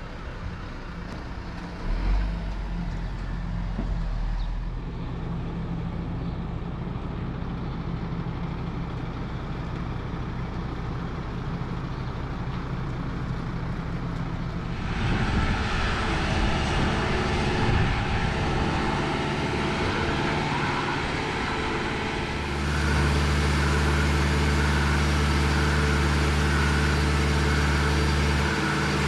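Heavy diesel engines running as a truck tows a boat on a low trailer. About halfway through the sound grows louder, and in the last quarter it becomes a loud, steady low hum of a self-propelled hydraulic boat transporter's engine up close.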